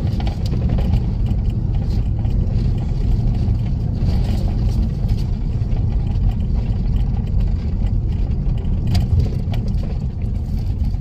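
A car driving along at a steady pace, heard from inside the cabin: an even low rumble of engine and tyres on the road.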